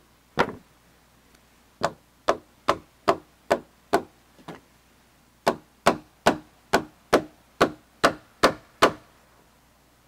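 Quick series of hand-tool blows into timber, cutting away about a centimetre of wood: around sixteen strikes at two or three a second, in two runs with a pause of about a second between them.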